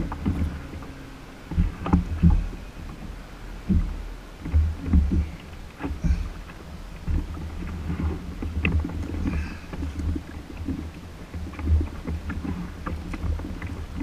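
Water lapping and slapping against a Hobie Outback's plastic kayak hull, with uneven low wind rumble on the microphone and a few sharp knocks.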